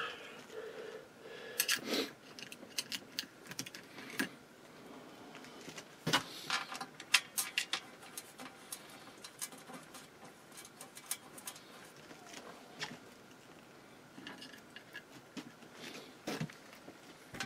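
Small metal screws and a screwdriver clicking and rattling against an inverter's heat sink and chassis as the screws are started loosely: irregular light clicks, with a few sharper ones.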